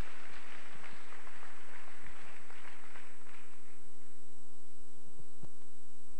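Steady electrical mains hum from the sound system, several tones held at once. A noisy crowd sound with small clicks sits under it and fades away over the first three seconds or so.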